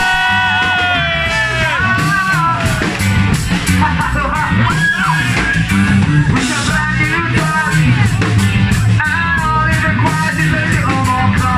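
Ska-punk band playing live and loud, with trombone, saxophone, drums, bass and vocals. A long held note opens it over a steady beat.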